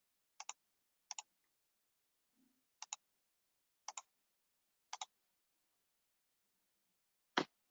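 Faint computer mouse clicks: five quick click-click pairs about a second apart, then one louder single click near the end, with near silence between them.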